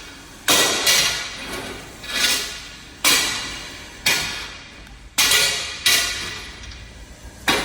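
A series of heavy strikes, about ten in all at roughly one a second, each hit dying away over about half a second.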